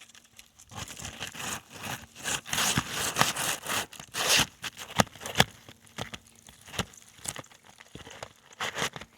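Atlas Chalet asphalt shingle being slid back into place under the course above: a dense gritty scraping and crackling of its granule surface, then a few sharp slaps about five seconds in, trailing off into small clicks.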